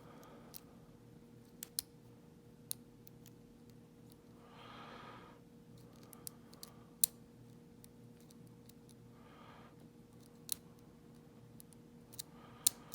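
Scattered, irregular sharp metallic clicks from lock picks and a tension tool working in the keyway of a vintage Yale dual-custody padlock.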